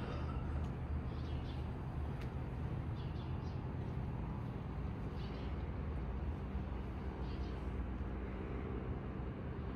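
Outdoor street ambience: a steady low rumble with small birds chirping briefly every second or two, and a faint steady hum coming in near the end.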